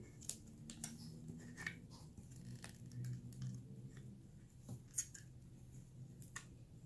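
A plastic spool of braided fishing line being handled and fitted onto the arm of a line-spooling stand: a few sharp clicks and knocks, the loudest about five seconds in.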